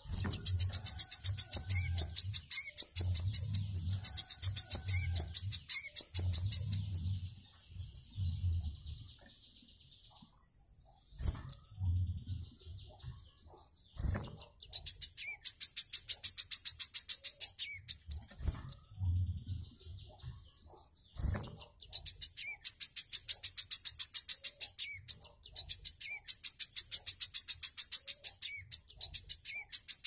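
Caged wiceh songbird singing long, rapid, high-pitched chattering trills, phrase after phrase with short pauses between them.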